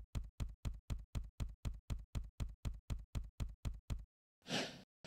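Intro sound effect for an animated title: a steady run of sharp, even knocks, about four a second, then a short burst of noise near the end.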